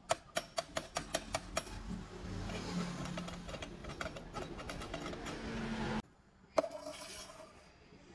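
Homemade rebar-screw steel clamp being worked by hand: a quick run of metal clicks as a nut is turned, then a steady scraping noise as the threaded screw turns. After a brief break comes a single sharp knock of steel on steel.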